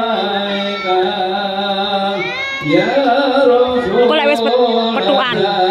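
Music with singing: a voice holds long notes over an instrumental accompaniment, sliding up in pitch about two seconds in and wavering through ornamented notes near the end.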